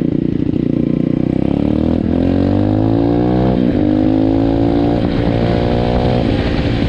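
Pit bike's single-cylinder four-stroke engine pulling hard while riding. The revs climb from about two seconds in, drop sharply at a gear change about three and a half seconds in, then climb again and level off.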